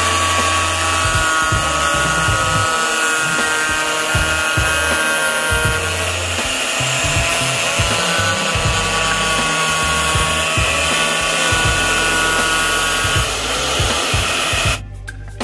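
Small angle grinder with a cut-off disc cutting through PVC plastic sheet: a steady high whine over grinding noise. It stops near the end.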